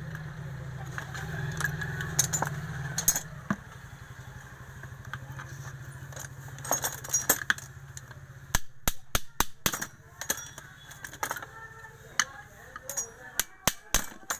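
A motor vehicle engine running with a steady low hum that stops about eight and a half seconds in. After that, a run of sharp metallic clicks and knocks from handling the stripped-down electric planer's parts.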